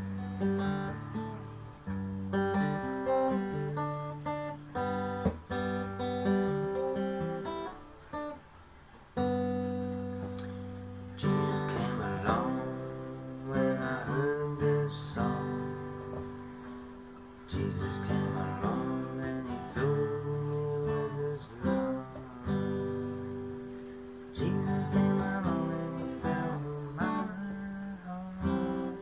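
Steel-string acoustic guitar played solo, chords strummed and picked, each ringing and fading before the next.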